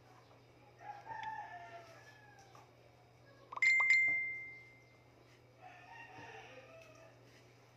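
A rooster crowing twice, about a second in and again near six seconds, each call falling in pitch. Midway a sharp metallic clink rings out briefly, the loudest sound.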